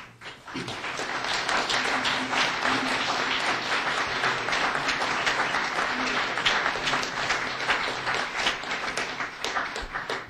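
Audience applauding, swelling in over the first second and tailing off near the end.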